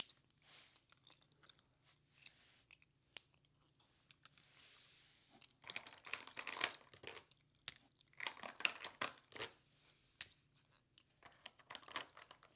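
Potato chips being chewed: soft crunches in scattered bouts, the densest about six seconds in and again around eight to nine seconds.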